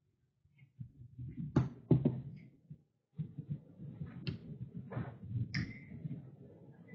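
Two sharp knocks about a second and a half and two seconds in, then a low, muffled, indistinct murmur with a few faint clicks.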